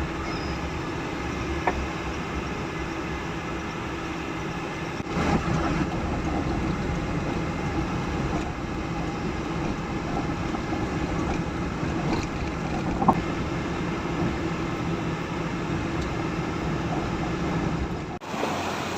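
Car driving: steady engine and road noise, with a few light clicks, cut off sharply near the end.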